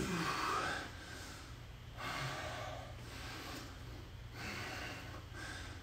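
A man breathing hard from exertion: three heavy breaths about two seconds apart, over a faint steady low hum.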